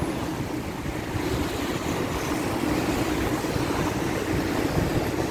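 Steady noise of surf breaking on a sandy beach, mixed with wind on the microphone.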